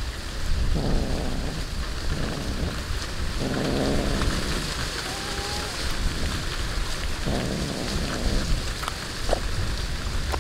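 Cat chewing raw fish close to the microphone: a steady wet crunching and smacking, broken by several short, low, buzzy rumbles about a second long.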